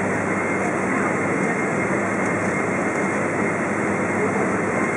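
Boeing 777-200's GE90 turbofan at takeoff power on the takeoff roll, heard from inside the cabin over the wing: a steady, loud engine noise with a thin high whine running through it.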